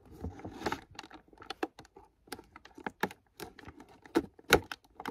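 Scissors cutting sellotape on a cardboard box: a run of quick, irregular snips and clicks, a few of them sharper and louder in the second half.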